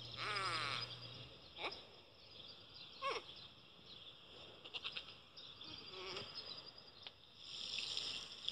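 A Minion's high, wavering, bleat-like voice for about the first second, then a few short falling squeaks.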